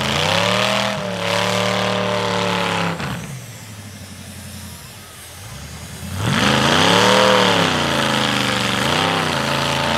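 Demolition derby car engines revving in two long bursts. The pitch climbs and holds for about three seconds, then drops back low. It climbs again about six seconds in and peaks, with a short extra blip near the end.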